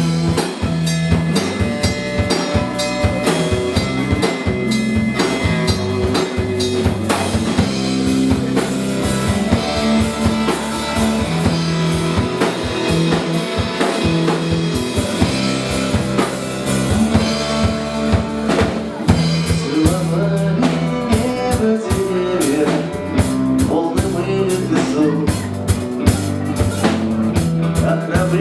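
Instrumental stretch of a rock song: drum kit with bass drum and rimshots keeping a steady beat under guitar and bass.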